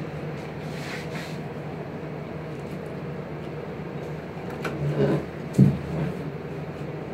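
A few dull knocks and bumps about five seconds in as a plastic bottle-top burette and its glass bottle are handled and turned on a table, over a steady low hum.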